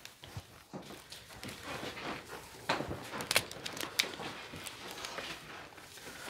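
Rustling and scattered sharp clicks as a string of Christmas lights is wound around an artificial tree, the loudest clicks in the middle.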